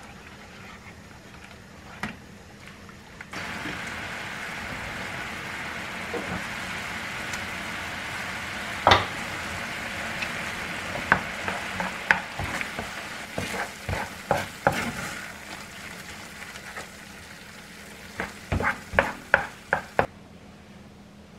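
Tomato risotto sizzling and bubbling in a ceramic-coated frying pan while a spatula stirs it, scraping and knocking against the pan. The sizzle sets in about three seconds in, and a quick run of spatula knocks comes near the end.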